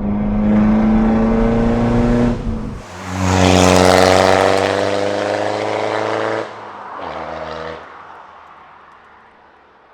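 Straight-piped BMW 320d's four-cylinder turbodiesel, DPF deleted, accelerating hard, with a brief break like a gear change about three seconds in. It pulls louder again with a strong exhaust rush, then drops off at around six and a half seconds and fades away toward the end.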